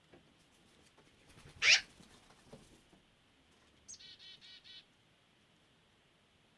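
Bird calls: a loud, brief, harsh sound about a second and a half in, then a black-billed magpie's quick chatter of five or six rasping notes a little past the middle.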